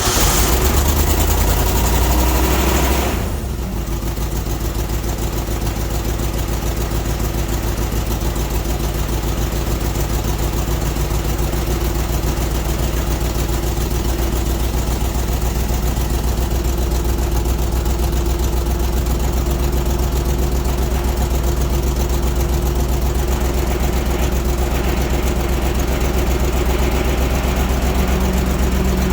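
Grimmer-Schmidt air compressor's 302 cubic inch Ford V8 engine, with four cylinders making power and four making air, running just after starting for the first time in months. It runs fast and loud for about three seconds, then settles to a steady idle.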